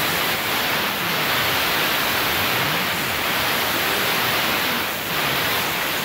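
Compressed-air blow nozzle, run at about 90 PSI, hissing steadily as it blasts into a window air conditioner's coils to loosen sprayed-on cleaner and grime. The hiss eases briefly about five seconds in.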